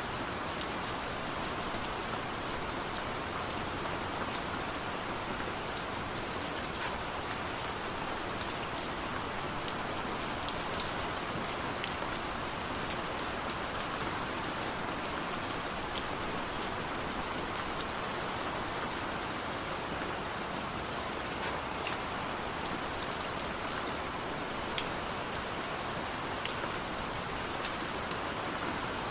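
Steady rain falling, an even hiss with scattered sharp drop taps close by and no thunder.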